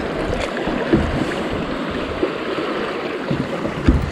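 Creek water rushing over a riffle around a kayak, a steady wash of noise with a few light knocks.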